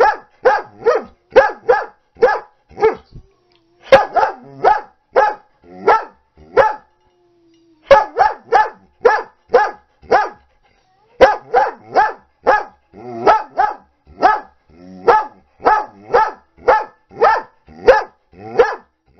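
A dog barking angrily in rapid runs of short, sharp barks, about two to three a second, with brief pauses about seven and eleven seconds in.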